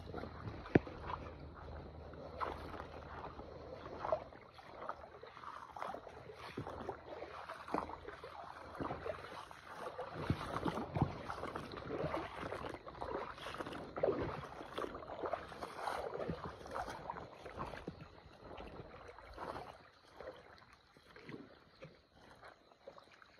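Water splashing irregularly in a shallow stream, many short splashes one after another. A high, faint pulsing sound runs underneath.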